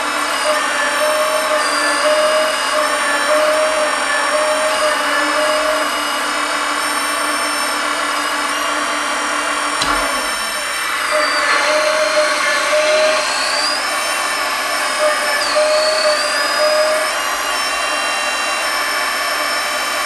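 Kabolite K350 RC hydraulic excavator working its arm: the hydraulic pump whines, its pitch dipping and rising as the boom and bucket move, under the sound module's simulated diesel engine. A single low knock comes about halfway through.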